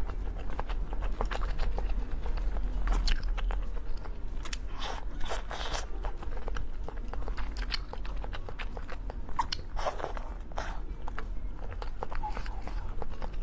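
Close-up eating sounds: crunchy bites and chewing, a run of short crisp crackles.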